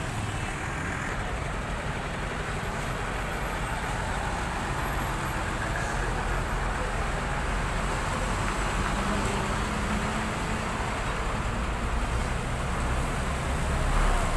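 Steady road traffic noise, vehicles running with a low continuous hum and no distinct events.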